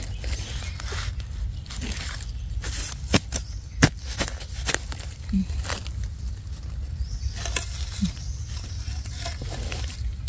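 Dry leaves and twigs rustling and crackling, with scattered sharp snaps, as someone moves or digs through forest leaf litter, over a steady low rumble.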